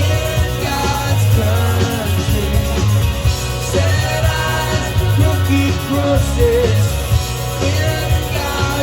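Live rock band playing, with singing over a steady pulsing bass and drums.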